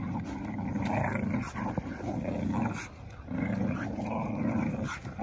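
Pit bull-type dogs growling in play while tugging on a shoestring between them: long low growls lasting a second or two each, with short breaks between.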